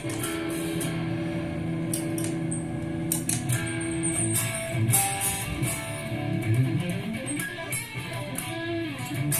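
Electric guitar played through a NUX MG-30 multi-effects processor. A note is held for the first few seconds, then notes slide up and down in the second half.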